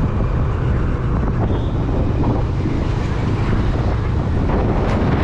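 Wind rushing over the microphone and the steady running of a scooter while it is ridden.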